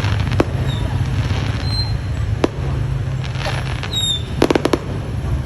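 Fireworks going off: single sharp bangs about half a second in and again about two and a half seconds in, then a quick run of four or five cracks near the end, over a steady low rumble.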